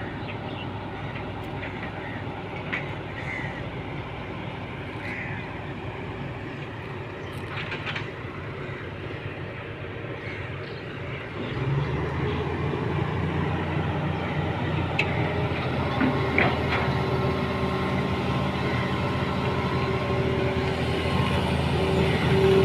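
Engine of a heavy construction vehicle running steadily, growing louder and deeper about halfway through as it works closer, with a few short clicks and knocks.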